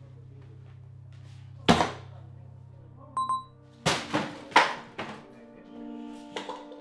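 A heavy thunk, then a short bright ding, then a quick run of knocks and thumps of objects being handled in a cardboard box, all over a low music drone that fades out partway through.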